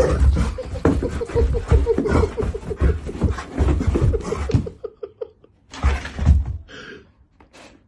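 A person laughing hard in rapid bursts, about five a second, over dull thumps and scuffs as a dog scoots and bucks on a rug on carpet. The laughter breaks off about five seconds in, then comes again in one short burst about a second later.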